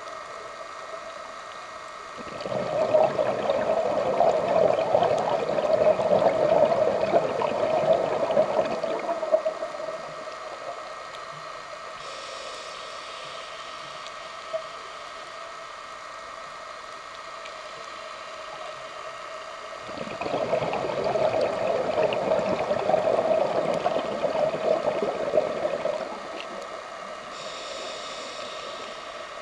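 Scuba diver's regulator breathing underwater: two long bursts of exhaled bubbles gurgling past the camera, the first about seven seconds long and the second about six. Brief faint hisses come between the bursts, over a steady background hum.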